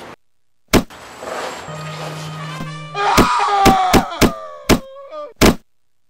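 Punch-like hit sound effects for a fight: seven sharp smacks, one about a second in and six in quick succession from about three seconds in. Background music cuts out abruptly at the start and returns briefly between the hits.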